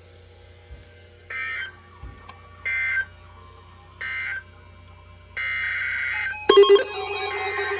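Emergency Alert System end-of-message code: three short two-tone digital data bursts a little over a second apart. A longer data burst follows, opening the next alert's header. Loud music-like tones start about six and a half seconds in.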